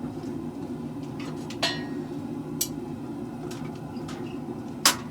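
Three separate clanks of steel on steel: one about a second and a half in, a lighter one a second later, and the loudest near the end. They ring briefly over a steady low drone from the running forge.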